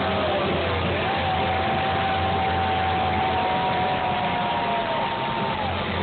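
Live rock band playing loud through a stage PA, heard as a dense, noisy wash with long held notes that slide down at their ends.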